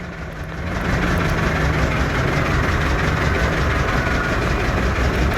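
Motorboat engine running steadily at one pitch, under an even hiss of wind and water.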